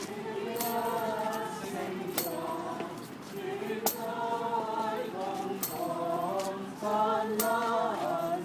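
A group of carolers singing a Christmas carol together, holding long notes in phrases. A few sharp clicks cut in every second or two.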